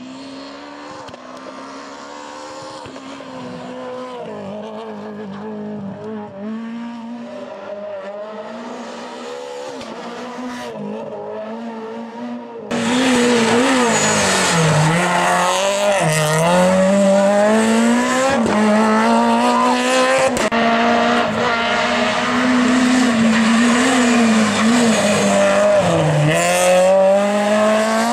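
Renault Clio R3 rally car's four-cylinder engine revving hard, its pitch climbing through the gears and dipping as the driver brakes and shifts down for corners. About halfway through, the engine suddenly becomes much louder and closer.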